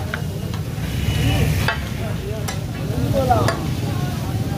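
Chicken frying and sizzling on a large flat tawa griddle, with metal spatulas clinking and scraping on it several times over a low steady rumble.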